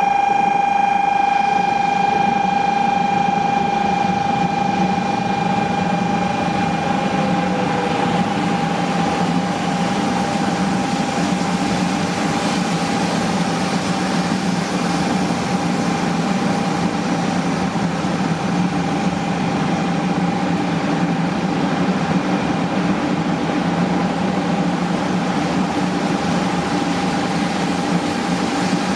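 JR West 500 series Shinkansen trainset rolling slowly in alongside the platform: a steady rumble and hiss of the train running on the rails, with a steady high whine that fades over the first few seconds and a short falling tone about seven seconds in.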